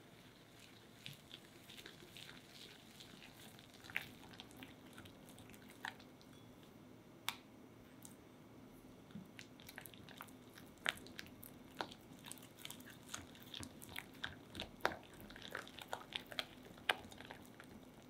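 Silicone balloon whisk creaming butter with powdered sugar, then with an egg yolk, in a glass mixing bowl: soft, irregular clicks and taps of the whisk wires against the glass and through the thick mixture, coming faster in the second half, over a faint steady hum.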